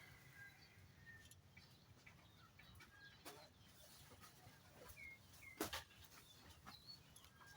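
Near silence with a few faint, short bird chirps and a couple of faint knocks.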